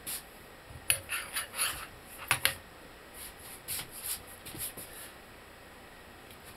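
Metal parts and tools being handled as a control arm is repositioned in the press: a run of sharp clinks and knocks about a second in, then lighter taps and scraping that die away.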